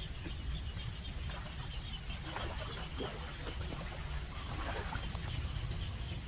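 Outdoor ambience: a steady low rumble with a few faint, scattered animal calls.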